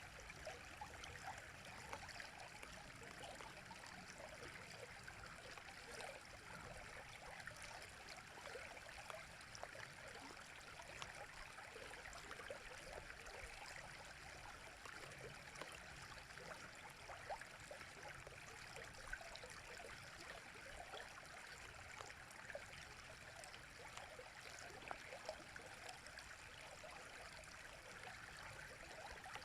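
River water running steadily, a continuous rush dotted with many small splashes.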